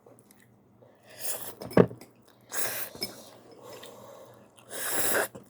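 Close-miked eating noises of someone eating ramyeon: three or four short hissy bursts of mouth and breath sound, with a sharp click about two seconds in.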